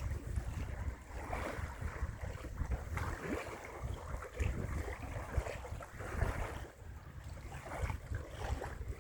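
Small waves lapping and washing, with wind buffeting the microphone in a low, uneven rumble.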